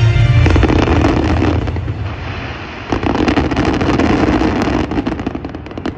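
Fireworks bursting and crackling in a dense barrage, with a fresh wave of bangs and crackle about three seconds in. Show music cuts off about half a second in.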